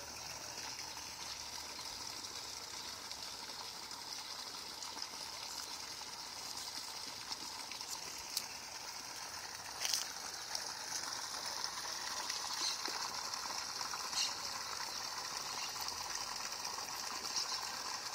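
Steady high-pitched outdoor hiss with a few faint, scattered clicks.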